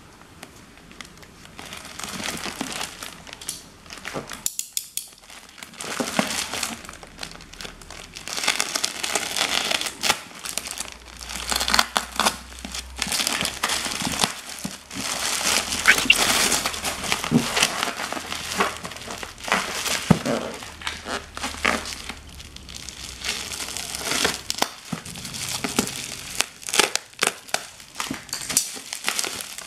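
Plastic mailer bag and bubble wrap being handled and pulled open by hand, crinkling and crackling irregularly, with a brief lull about five seconds in.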